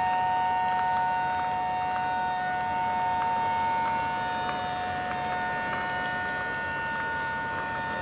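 Fire engine sirens sounding together in a steady, unbroken howl: two held tones that do not rise or fall.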